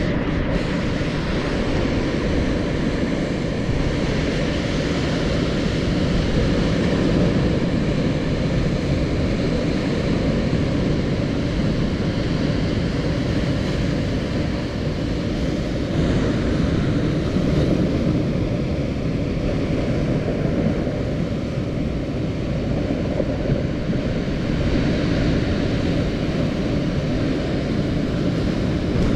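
Ocean surf breaking and washing over a rocky shore, a steady rumbling wash that swells a little now and then, with wind rumbling on the microphone.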